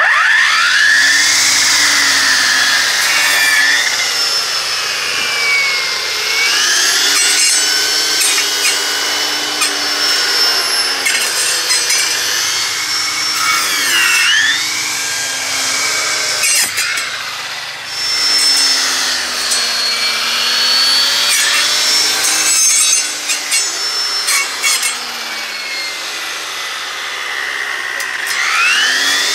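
EGO 56V cordless trimmer power head spinning a 9-inch 24-tooth brushcutter blade. It whines up to speed at the start, then saws through saplings and branches, its pitch sagging and recovering each time the teeth bite into the wood, with a rasping cut and scattered sharp ticks.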